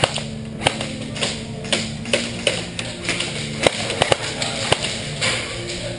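Airsoft guns firing single shots: irregular sharp snaps, about two a second, the loudest a little past the middle, over a steady low hum.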